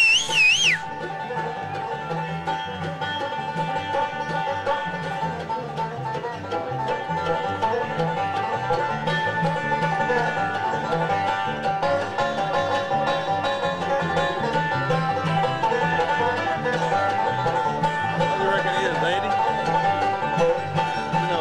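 Five-string banjo picking a fast bluegrass instrumental break, backed by acoustic guitar. In the first second a loud, high, wavering whistle-like squeal cuts in over it.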